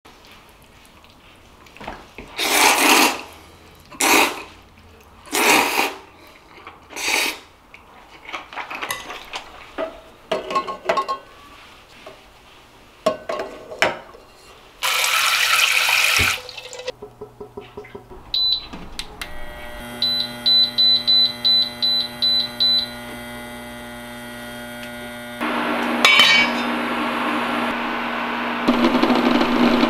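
Noodles slurped in several loud bursts, then eggs knocking against a stainless steel pot and a short rush of running water. A portable induction cooktop beeps about nine times in quick succession and hums steadily, and the water in the covered pot begins to hiss as it heats, growing louder near the end.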